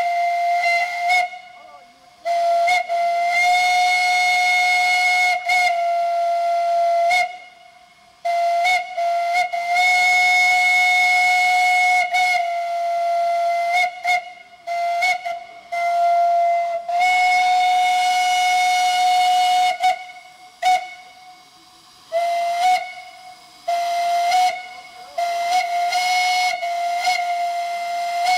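A single-note steam whistle blown on live steam from a Shay locomotive. It sounds in a string of long and short blasts of one steady, fairly high note, each starting and stopping with a slight slide in pitch.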